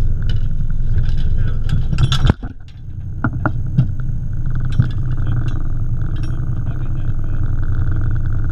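Boat engine running with a steady low rumble. About two seconds in, a burst of knocks and clatter right at the microphone, after which the rumble briefly drops away, followed by a few scattered clicks.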